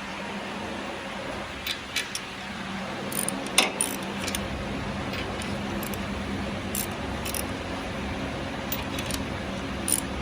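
A 2010 Honda Civic's engine runs steadily, with light metallic clinks and jingles over it like keys or small tools. The low hum grows fuller about three and a half seconds in.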